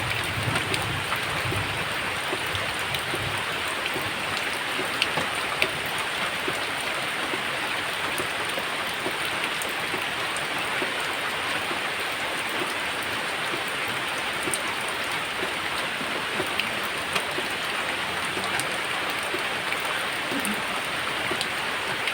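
Steady, heavy rain falling, with scattered individual drops ticking sharply above the even hiss.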